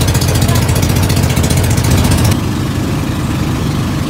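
Boat engine running steadily and loud close by, with a rapid, even firing beat, heard from aboard the moving boat. A little over halfway through, the sound shifts slightly.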